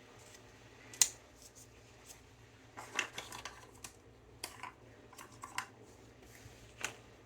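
Scattered small clicks and taps of small objects being picked up and set down on a hobby workbench, the sharpest about a second in, with a quick run of them around the middle.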